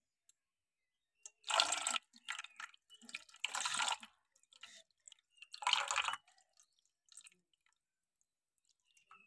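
Water poured from a small metal vessel over a brass figurine into a shallow metal bowl: four short splashing pours of about half a second each, with faint drips between.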